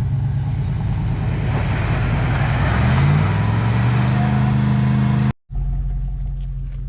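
Pickup truck engines revving hard under load while towing a heavy tree out of a pond on chains, the pitch climbing about two to three seconds in and holding high. The sound cuts out abruptly about five seconds in, then the engines carry on running more steadily at lower revs.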